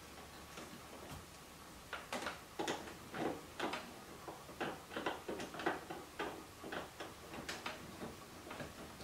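Irregular clicking and short scraping starting about two seconds in: screws being started by hand with a screwdriver into the plastic air deflector behind the seats.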